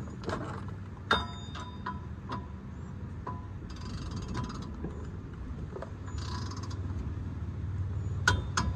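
Torque wrench ratcheting on the brake caliper bracket bolts during the first 50 foot-pound tightening pass, with metallic clinks of the socket and wrench and two sharp clicks close together near the end. A low steady rumble lies underneath.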